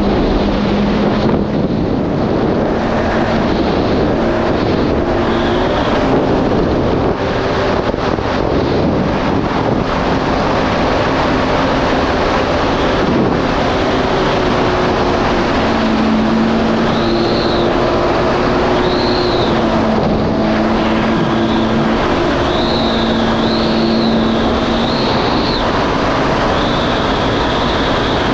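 Yamaha GP1800R SVHO jet ski (supercharged four-stroke) running under way, its engine tone stepping up and down with the throttle, under heavy wind and spray noise on the microphone. In the second half a high whine swells and fades several times.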